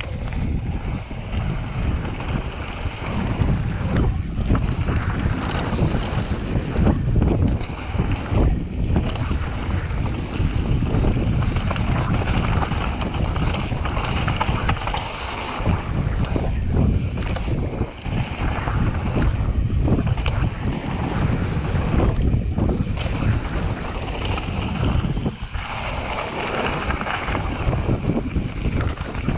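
Wind rushing over the microphone of a mountain bike speeding down a dirt trail, with tyres rolling over dirt and gravel and the bike rattling and knocking over rough ground.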